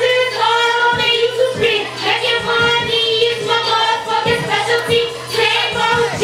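A woman rapping into a handheld microphone over a hip-hop beat with repeated low kick-drum thumps.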